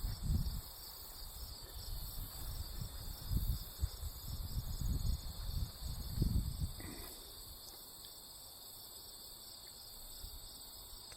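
Crickets chirping steadily in a high, continuous trill, with uneven low rumbles on the microphone over the first several seconds.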